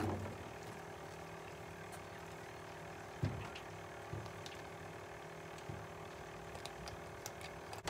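A few soft knocks and clicks, the clearest about three seconds in, as a sheepshead is unhooked by hand in a small aluminium boat, over a steady faint hum.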